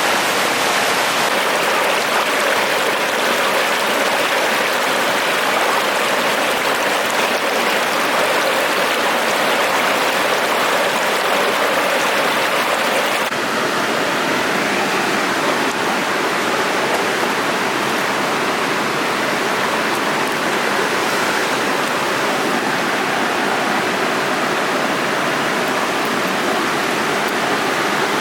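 Mountain stream rushing steadily over rocks, a continuous loud wash of water; the sound shifts slightly about 13 seconds in.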